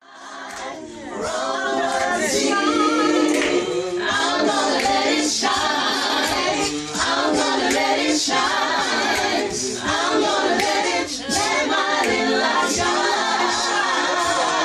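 Gospel choir singing a devotional song together a cappella, fading in over the first couple of seconds.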